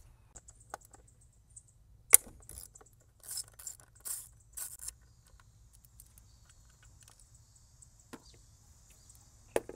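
Ratchet with a 10 mm socket on an extension working loose the tight hold-down bolt of an ignition coil: a sharp metallic click about two seconds in, then four short bursts of ratchet clicking a second or so later, and a couple of light metal clicks near the end.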